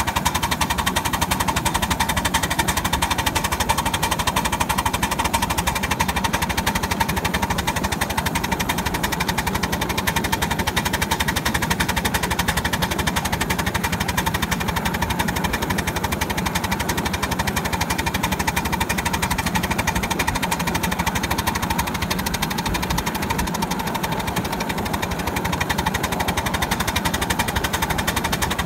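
Ride-on scale steam locomotive of the Pacific (4-6-2) type running along a miniature railway, heard from the car just behind it: a fast, even rattle of the engine and wheels on the track that holds steady throughout.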